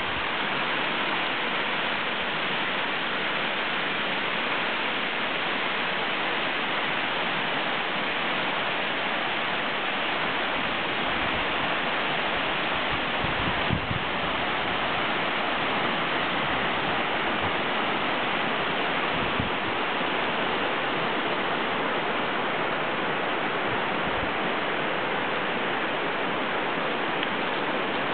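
Shallow river rushing over gravel and stones: a steady, even rush of water.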